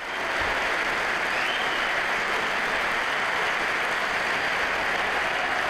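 Football stadium crowd cheering and applauding, a steady dense wash of noise that fades in at the start and then holds level.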